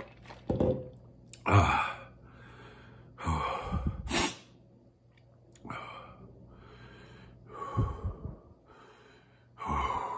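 A man breathing hard through his mouth, gasping in and sighing out in half a dozen heavy breaths a second or two apart, from the burn of a very hot sauce.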